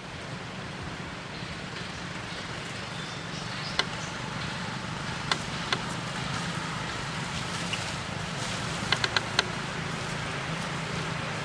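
Steady outdoor background noise with a low hum, broken by a few sharp single clicks and then three clicks in quick succession near the end.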